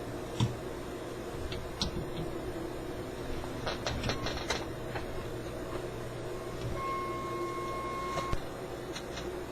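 1968 Ford Mustang Philco AM/FM car radio's speaker giving a steady hiss and hum, with scattered clicks and crackles. A clean steady tone comes through for about a second and a half near the end.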